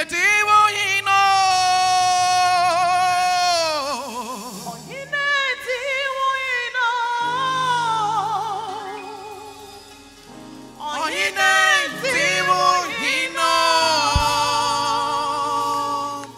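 Gospel singing: one voice holding long notes with heavy vibrato over a soft, steady accompaniment. The singing dies down about two-thirds of the way through, then comes back with a new phrase.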